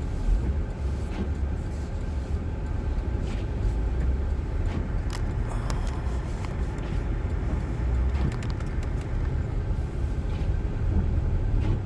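A front-wheel-drive car driving slowly on snow-covered streets, heard from inside the cabin: a steady low rumble of engine and tyres, with scattered short clicks.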